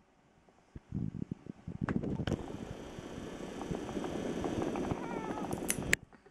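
Nail clipper cutting a cat's claws: a few sharp snips, one pair about two seconds in and another near the end, over a steady low rumble of the cat being held close to the microphone.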